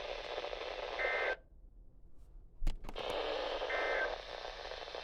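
Weather radio receiver hiss with two short bursts of SAME digital data tone, the kind sent at the end of a warning message: one about a second in, the other near four seconds. Between them the hiss cuts off suddenly to near silence for about a second and a half, and a sharp click comes just before it returns.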